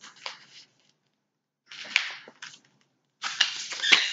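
Sheets of a scrapbooking paper pad being turned by hand: three short bursts of paper rustling with sharp snaps, the last one the loudest.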